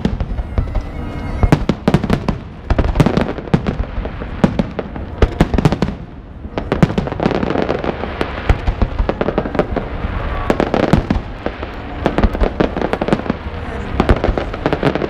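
Fireworks display: aerial shells bursting in rapid succession, a dense run of sharp bangs and crackles with barely a pause.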